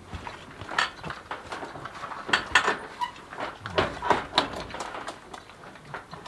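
Irregular knocks and clinks of a hand tool being worked against a wooden pig-pen gate with a wire panel, with pigs grunting as they root in wood chips.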